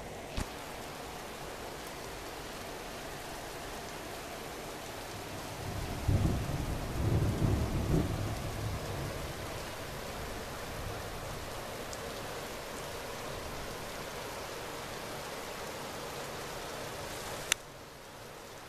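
Steady rain during a thunderstorm, with a roll of thunder rumbling low for about three seconds near the middle. A sharp click comes near the end, after which the rain is quieter.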